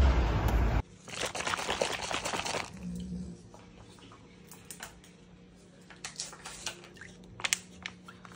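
Brief street noise, cut off sharply, then about two seconds of plastic packaging crinkling. Near the end come scattered small wet clicks and taps as a golden retriever starts lapping at a creamy snack in a plastic bowl.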